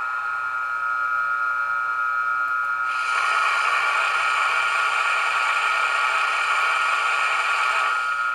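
ESU sound decoder in a Roco H0 model of a BLS Re 475 Vectron playing electric-locomotive running sound through its small speaker: a steady hum of several high tones, with a rushing hiss that comes in about three seconds in and drops away near the end.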